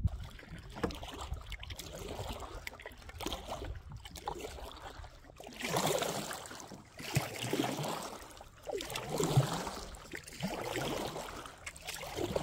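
Canoe paddle strokes: the paddle blade dipping and pulling through the water, with splashing and dripping that swells with each stroke about every second or two.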